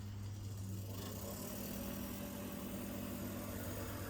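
A steady low mechanical hum, like a small motor running, that starts at the beginning and holds an even pitch throughout.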